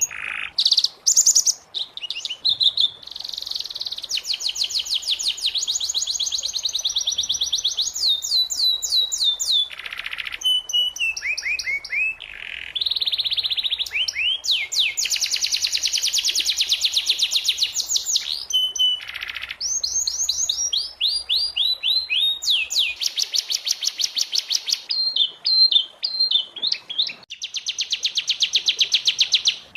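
Domestic canary singing a long, fast song of rapid trills and rolls, changing abruptly from one phrase to the next.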